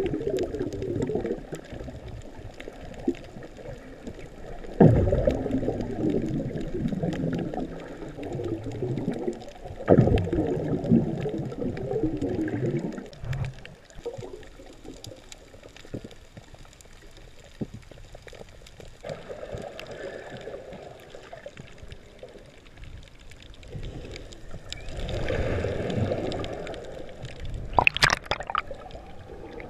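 Muffled gurgling and sloshing of water, heard underwater through a camera housing, swelling and fading several times. Near the end comes a sharp splash as the camera breaks the surface.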